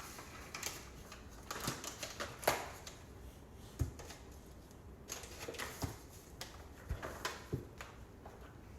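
Irregular small clicks and knocks of baking utensils and measuring cups being handled and set down on a kitchen counter.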